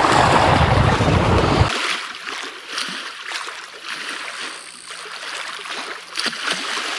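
Strong wind buffeting the microphone with a heavy rumble, which cuts off abruptly a couple of seconds in. It gives way to a much quieter stretch of water lapping against a small boat, with a few faint knocks.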